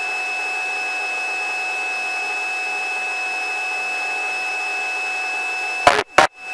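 Helicopter cabin noise during takeoff, heard through the headset intercom: a steady hiss with a constant high whine and no rotor beat. Near the end it cuts out sharply a few times.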